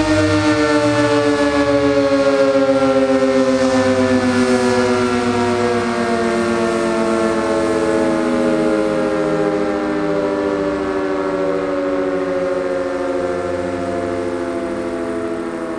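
Sentry 20V2T dual-tone outdoor warning siren winding down after a short blast: its chord of two tones slowly falls in pitch and fades as the rotors coast to a stop.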